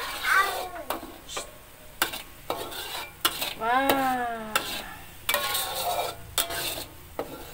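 A metal spatula scrapes and knocks against an aluminium wok as chilli spice paste is stirred, with the paste sizzling as it sautés. A short pitched call with bending pitch cuts through twice, just after the start and about four seconds in.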